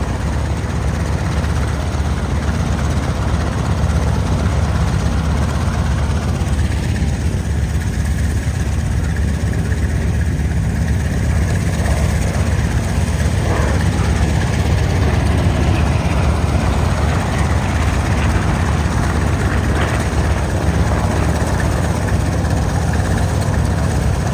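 Propeller-driven piston aircraft engines running, a steady low drone with faint rising and falling pitch.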